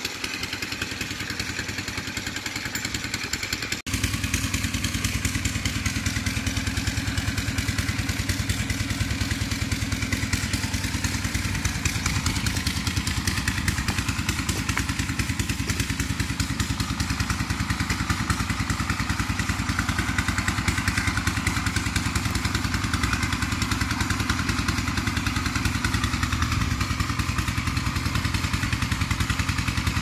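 A small engine running steadily with a fast, even chugging, briefly cut off about four seconds in.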